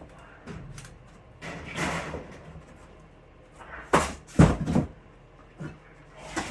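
Wooden framing boards being handled during wall demolition: a rubbing scrape about two seconds in, then a burst of sharp knocks and thumps about four seconds in, and a few lighter knocks near the end.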